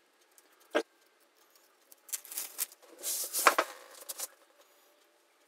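Paper backing being peeled off a fusible-web fabric appliqué: a single light tick about a second in, then crinkly rustling of the paper for about two seconds.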